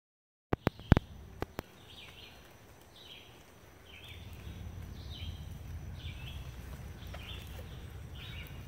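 A few sharp clicks about half a second in, then a bird calling over and over, about once a second. A low rumble on the microphone joins in about halfway through.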